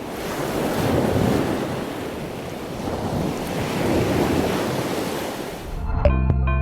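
Sea waves washing ashore, swelling twice, with wind buffeting the microphone. Music starts near the end.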